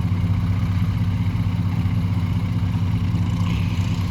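A heavy vehicle's engine running steadily at a low, even pitch.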